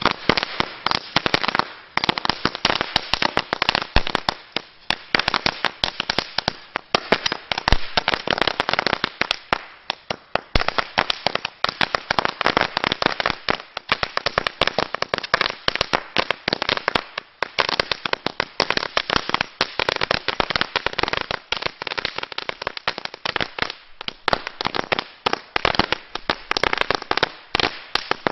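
Blackboxx Rapiator firecracker chain going off: a rapid, unbroken string of sharp bangs, many per second.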